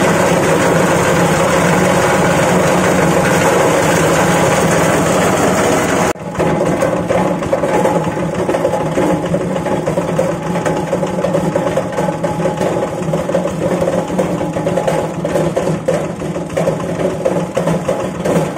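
Fabric-and-foam shredding machine running with a steady mechanical hum. About six seconds in the sound drops for a moment, then goes on rougher and more uneven, with many short clicks.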